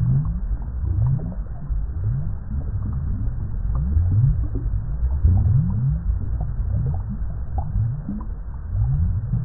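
Water bubbling: a continuous run of low, deep bubbles, each one a short upward glide in pitch, about one or two a second, over a steady low rumble.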